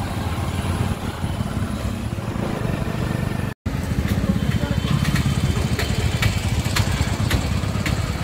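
A vehicle engine running steadily with a fast, even low rumble. The sound cuts out completely for a moment a little past the middle, and a scattering of sharp clicks follows.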